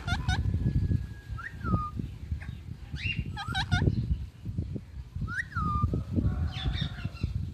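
Indian ringneck parakeet calling: a quick run of short squawks at the start, a rising-then-falling whistled call, another cluster of squawks about three seconds in and a single upswept call about five seconds in, over a steady low rumble.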